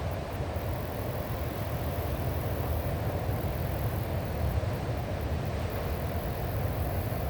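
Strong sea wind buffeting the microphone with a steady low rumble, over the continuous wash of ocean waves breaking on the shore.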